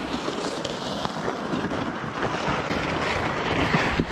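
Wind rushing over the microphone, with footsteps crunching on snow-covered ice as the person carrying the camera hurries across.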